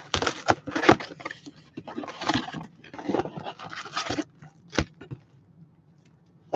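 Packaging of a box of trading cards being handled and opened: a run of short scrapes and crinkles for about four seconds, then a single sharp click, then only faint handling.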